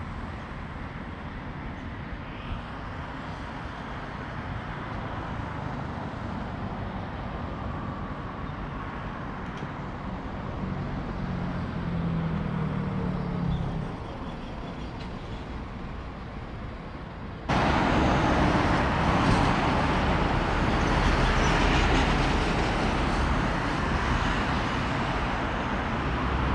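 Road traffic on a multi-lane road: a steady noisy rumble of passing cars, one vehicle's hum swelling and fading about 11 to 14 seconds in. About 17 seconds in the sound jumps suddenly much louder and stays loud.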